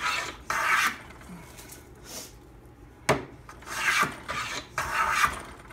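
Hand plane with a 55-degree frog cutting a chamfer along a wooden molding-plane blank: a few short scraping strokes of the iron taking thin shavings, with a quieter gap between the first stroke and the rest. A sharp knock comes about three seconds in.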